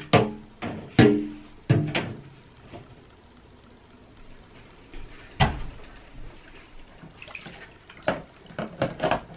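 Hard objects clunking and knocking against a glass reptile terrarium as items are taken out and set down. It starts with three sharp knocks with a brief ringing after each, then a heavy thump about five and a half seconds in, and a few lighter clicks near the end.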